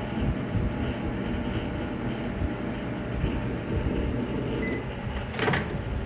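Panasonic microwave oven running with a steady hum. Near the end a short beep sounds, then the door latch clacks as the door is pulled open.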